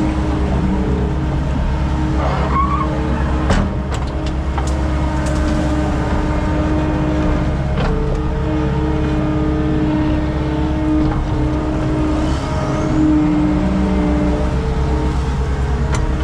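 Skid steer engine running steadily under load, its pitch shifting as the machine works. A few sharp clanks: one about three and a half seconds in, another near eight seconds and one near the end.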